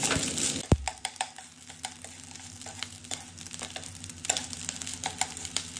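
Wooden chopsticks stirring and breaking up cooked rice with browned garlic in a nonstick frying pan, with many small clicks and scrapes against the pan over a light sizzle of oil. A sharp knock comes just under a second in, and the sizzle drops soon after.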